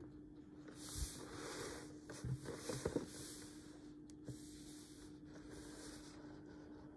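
Faint handling sounds of a cardboard Funko Pop box with a plastic window being turned by hand on a tabletop: soft rustling and a few light knocks, most of them a couple of seconds in, over a faint steady hum.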